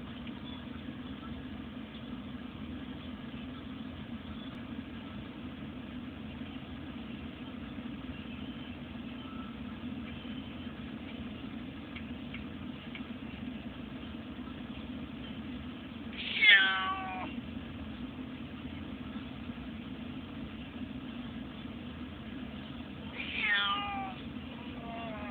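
A distressed cat in a pet carrier meowing twice, about seven seconds apart, each a drawn-out call of about a second that falls in pitch, the first louder. The steady drone of the taxi's engine and road noise inside the cab runs underneath.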